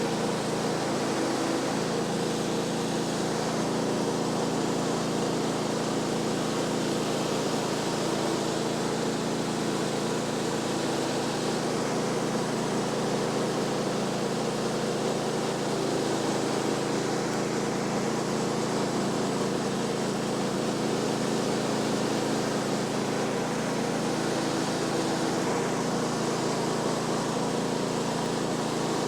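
Engine running steadily at a constant speed, with an even hum and hiss and no change in load.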